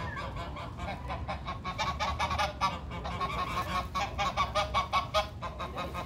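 A flock of white domestic geese honking, a rapid, continuous run of short calls, several a second.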